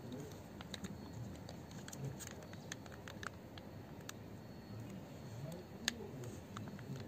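Light, scattered clicks and scrapes of a metal spoon against a plastic bowl and a soft mayonnaise pouch as mayonnaise is spooned out, with one sharper click near six seconds in.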